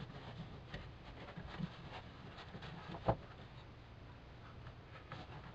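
Faint rustling and crinkling of self-adhesive foil duct insulation being pressed by hand onto the car's sheet-metal rear panel, with one sharp knock about three seconds in.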